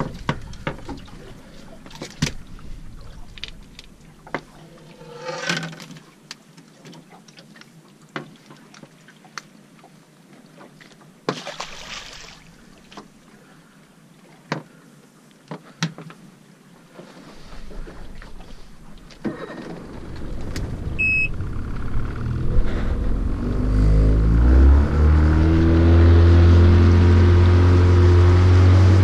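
Scattered clicks and knocks of fishing tackle being handled on a boat deck, then about two-thirds of the way in the boat's motor comes up to speed, rising in pitch as it is throttled up and then running steady and loud as the boat runs back up-current to start a new drift. A short high beep sounds just as the motor comes on.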